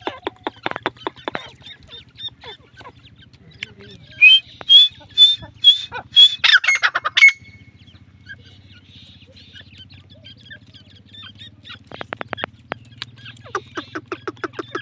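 Grey francolin chicks peeping in quick, even runs. About four seconds in, an adult francolin gives a loud series of about six harsh, high calls, roughly two a second, over some three seconds, before the chicks' peeping picks up again near the end.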